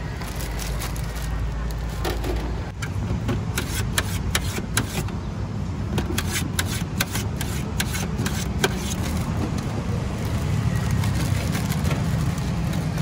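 Kitchen knife cutting fruit on a metal cutting board: a quick run of sharp taps and clicks in the middle as the blade chops through and strikes the metal, over a steady low hum.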